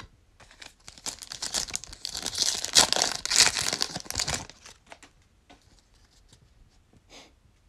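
Shiny plastic wrapper of a Donruss football trading-card pack being torn open and crinkled: a dense crackling that lasts about four seconds and is loudest in its second half. After it, a few faint clicks as the stack of cards is handled.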